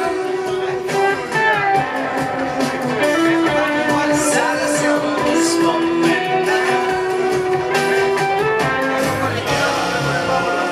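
Live band music: an acoustic guitar and an electric guitar playing together, with singing.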